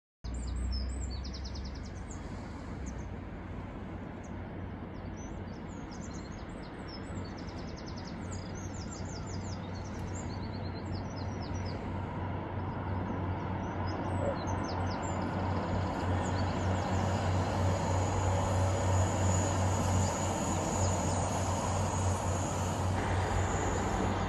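Birds chirping over a steady low rumble as a GWR Castle Class High Speed Train approaches. The diesel train's sound slowly grows louder, and a steady high whine joins it in the second half.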